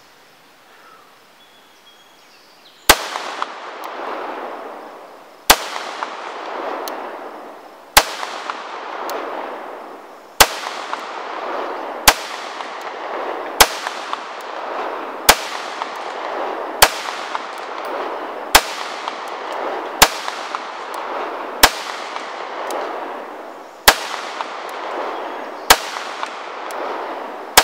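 Pistol fired slowly and deliberately, about fourteen single shots starting a few seconds in, roughly two seconds apart, each crack followed by a long rolling echo that fades before the next shot.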